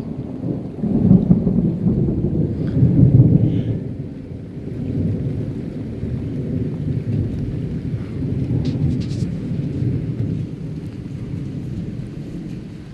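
A long, low rumble of thunder from a lightning storm, loudest in the first few seconds, then rolling on and slowly fading.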